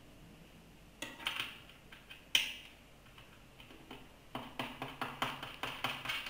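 Light clicking and tapping from tightening the screws that fix the metal T-rod of an OMR scanner stand to its bottom tray. A few clicks and one sharp click come in the first half, then a quick run of clicks, about four or five a second, near the end.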